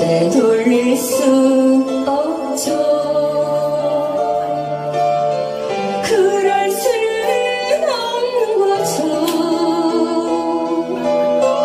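A woman singing a Korean trot song into a microphone, her amplified voice over backing music with sustained chords and a few sharp percussion hits.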